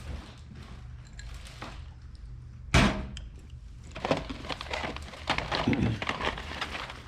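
Boxed toys being handled: one loud thump about three seconds in, then a run of knocks and cardboard rustling as boxes are pulled out of a large carton and set down.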